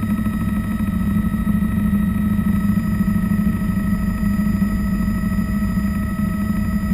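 Bell 206 JetRanger helicopter heard from inside its cabin in flight: a steady drone from the rotor and Allison 250 turbine, with a few high, steady whining tones over it.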